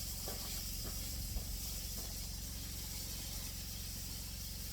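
Deer backstrap sizzling steadily in a frying pan.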